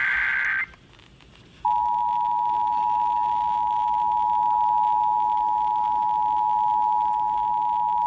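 NOAA Weather Radio emergency alert: the tail of a SAME digital header burst cuts off under a second in, then after a short pause the steady single-pitch 1050 Hz warning alarm tone starts and holds, signalling that an emergency message follows.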